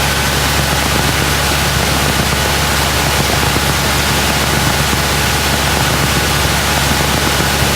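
Cessna 172's four-cylinder engine running at idle power under a steady rush of air noise, heard inside the cockpit.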